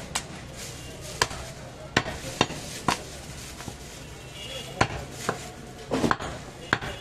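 Heavy butcher's knife chopping goat meat and bone on a wooden chopping block: about nine sharp, irregular chops, the loudest about five seconds in.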